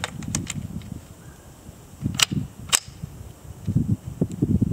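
Rifle being loaded by hand: a few light clicks near the start, then two sharp metallic clacks about half a second apart a little past two seconds in, over the rustle of handling.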